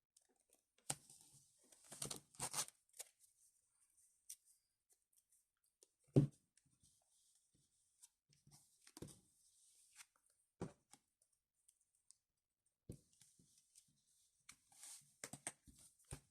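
Handling noise from opening packaging and trading cards: scattered rustles and small clicks, with one louder knock about six seconds in.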